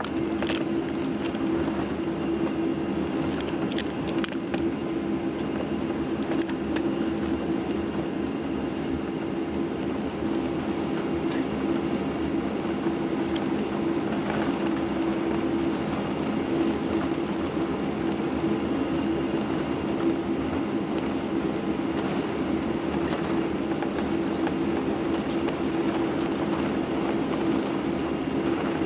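Boeing 747-8i's GEnx engines at taxi power, heard inside the passenger cabin: a steady hum made of several low tones over a constant rush of noise, with a few faint clicks.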